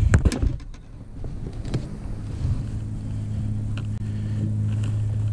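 Steady low hum of a bass boat's motor, swelling about a second in and then holding even, with wind on the microphone. A few sharp handling clicks come at the start.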